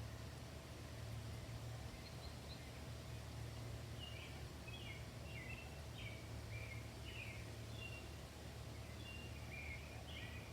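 Faint suburban outdoor ambience: a steady low rumble with a bird chirping in short, high notes, mostly from about four seconds in.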